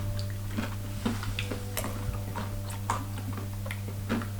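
Coated groundnuts crunching as they are chewed: irregular sharp crackles, a few a second, over a steady low electrical hum.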